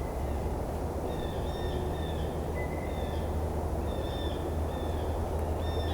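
A small bird giving short, high calls again and again, roughly one or two a second, over a steady low rumble.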